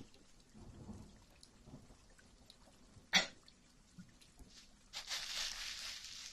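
Soft close-miked ASMR sounds: a sharp click about three seconds in, then a breathy hiss lasting about a second near the end.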